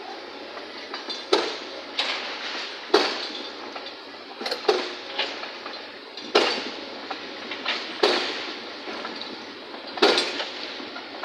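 Large tracked demolition excavator working a pile of debris: a series of about ten sharp metallic clanks and crashes at irregular intervals, roughly one a second, over steady background noise.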